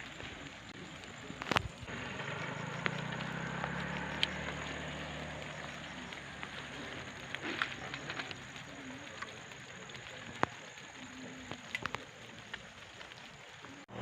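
Outdoor ambience: a steady hiss with scattered small clicks and ticks, and a low steady hum of a distant engine during the first half.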